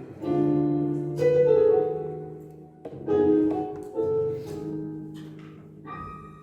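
Piano chords played as accompaniment under a sermon, several chords struck about a second apart, each left to fade.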